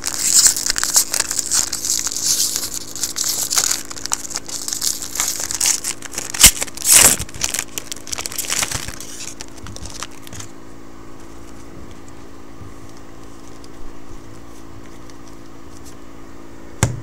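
Foil wrapper of a 2012 Topps football jumbo pack crinkling and tearing as it is ripped open, with sharp snaps about six and a half and seven seconds in. The crinkling stops about ten seconds in.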